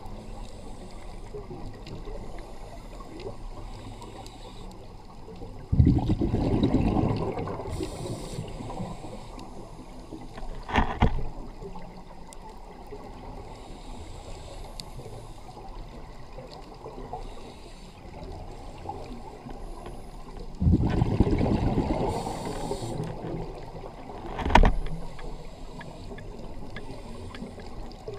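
Underwater ambience as a scuba diver breathes through a regulator: two long rushes of exhaled bubbles about fifteen seconds apart, each with a high regulator hiss, and a couple of sharp clicks in between.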